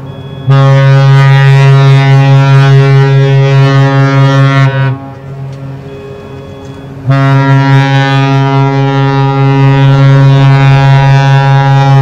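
Ship horn of the cruise ship Vasco da Gama sounding two long, deep, steady blasts, each about four to five seconds, with a pause of about two seconds between them.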